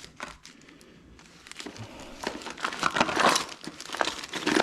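Hands rummaging through a bucket of loose motorcycle lights and fuel hoses: rustling and crinkling with many small clicks and clatters of parts knocking together. It is faint for about the first second, then grows busier and louder.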